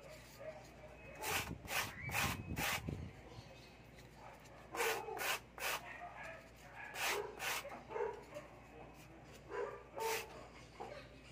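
Polystyrene foam discs rubbed against each other by hand, giving short bursts of squeaky scraping, one after another, with pauses between strokes.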